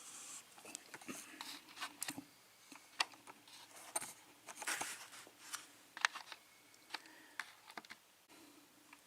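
Irregular small clicks, taps and scrapes of a lock being handled, with metal key and pick tools knocking against it.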